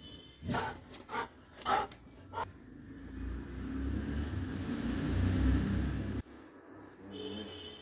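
A Doberman gives about five short barks in the first two and a half seconds. A rumbling noise follows, the loudest sound here, and stops abruptly after about three seconds.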